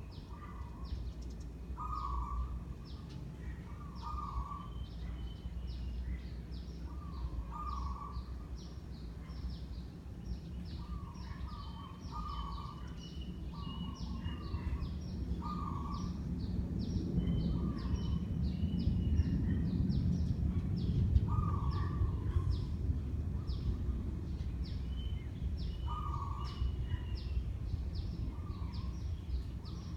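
56-inch Sunwindy ceiling fan running with a steady low hum that swells about halfway through and then eases back. Birds call repeatedly over it, roughly every two seconds, and a fast, high ticking runs throughout.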